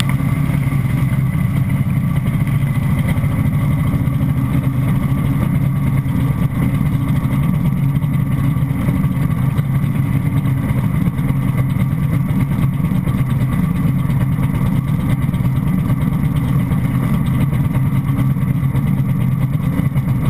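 Jet ski engine running steadily with water rushing and splashing along the hull, picked up by a camera mounted low on the craft.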